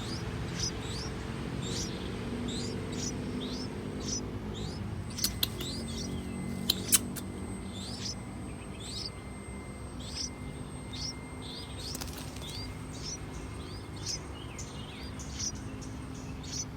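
A small bird's short, rising chirps, repeated steadily about once or twice a second, over a low, steady background rumble, with a few sharp clicks about five and seven seconds in.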